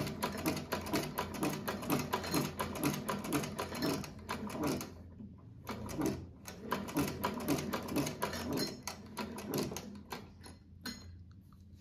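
Decades-old sewing machine running with its mechanism exposed, clattering in a steady rhythm of about three stitches a second. It pauses about five seconds in, runs again, and winds down near the end. The owner says it has started making noise and needs oiling.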